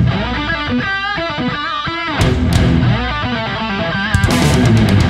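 Rock backing music: an electric guitar plays a lead line with bending notes over drums.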